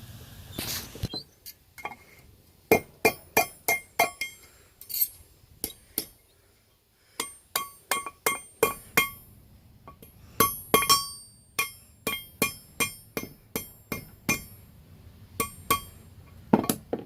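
Hammer striking a horseshoe nail on a railroad-track anvil, each blow ringing, in quick runs of about three a second with a short pause midway, while the nail's warm tip is bent into the first curl of a hook.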